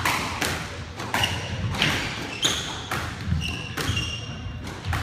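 Squash rally: the ball struck by rackets and smacking off the court walls and floor in a quick run of sharp hits, with sneakers squeaking briefly on the wooden floor in the middle.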